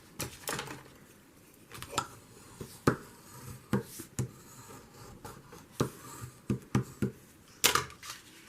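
Sheets of paper being handled and folded by hand on a work table: an irregular series of sharp taps and crinkles, the loudest about three seconds in and again near the end.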